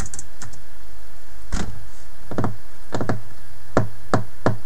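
Computer keyboard keystrokes: about nine separate sharp taps at uneven intervals.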